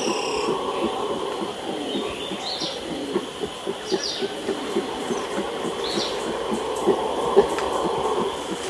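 Red howler monkey grunting aggressively at close range in a rapid, rhythmic string, over the low, steady roar of a howler troop in the background.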